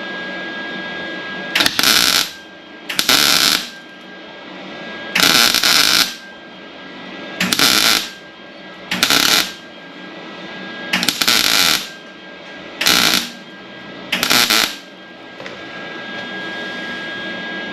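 Wire-feed welder laying a run of short tack welds on steel truck body panels: eight bursts of crackling arc, each about half a second to a second long, with short pauses between them.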